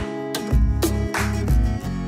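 Music led by strummed guitar, with chords changing over low bass notes.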